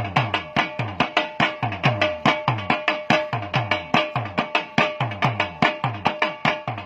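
Hazara folk drumming on a dhol: a quick, steady beat of sharp strokes over deep strokes that drop in pitch, with a steady held note underneath.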